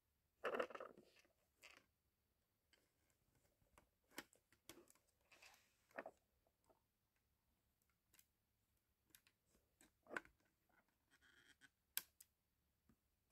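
Plastic LEGO Technic parts of a home-built shell-ejecting gun mechanism, clicking and rattling faintly as a hand works them: a short rattle about half a second in, then scattered single clicks, the sharpest near the end.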